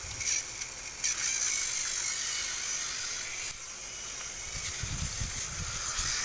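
Battery-powered toy train motors whirring with a steady high whine, with short plastic knocks near the start and about a second in. Low rumbling thumps of handling around five seconds in.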